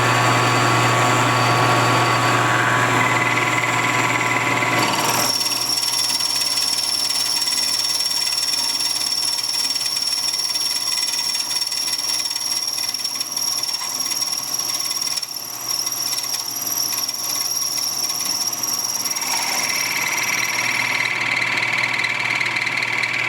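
Milling machine running with a homemade ball cutter plunging into a mold block, a wide cutting surface in full contact. From about five seconds in, a high steady whine rises over the machine's hum and holds until shortly before the end.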